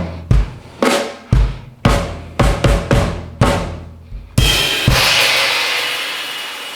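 Drum kit played solo: bass drum and snare strokes about two a second, ending about four seconds in on a cymbal crash and one last accent, the cymbal ringing out and fading.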